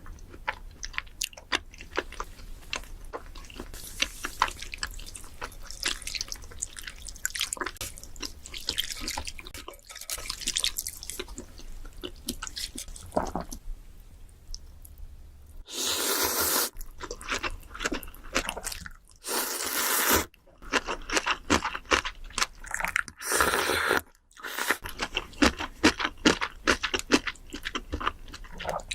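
Close-miked eating sounds: chewing and crunching with many small wet mouth clicks, broken by three louder bursts of under a second each in the second half.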